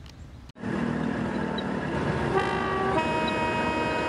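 Diesel locomotive horn: a loud multi-note horn chord starts suddenly about half a second in and switches to a different chord about three seconds in, over the steady noise of the train.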